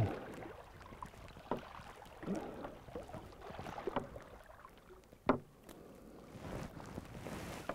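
Water sloshing against the side of a boat and around a landing net held in the river, with a few sharp knocks.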